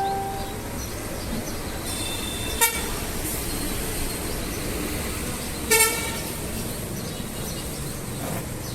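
Two short horn toots about three seconds apart, over a steady background hum.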